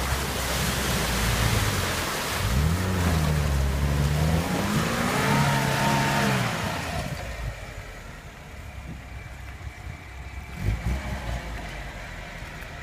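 Lada Niva 4x4 engine revving hard while it churns through a mud-and-water rut, wheels spinning and throwing up mud and water. The revs climb and fall a couple of times, then about seven seconds in the engine drops back to a quieter, steadier running as the vehicle comes out onto firm grass.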